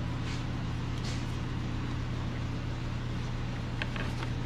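A steady low mechanical hum with a few faint short clicks.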